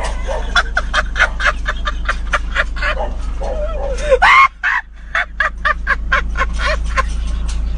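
A man laughing hard in rapid cackling bursts, with a loud rising cry about four seconds in.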